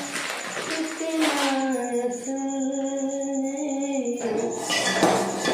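Music with a female voice singing long held notes that step up and down in pitch, over a steady high pulsing cricket trill. A short rustling noise comes near the end.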